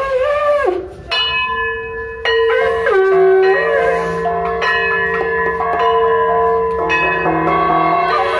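A bell-metal plate gong (kansar) struck again and again with a stick, starting about a second in, its ringing tones piling up and overlapping, over a long held lower tone.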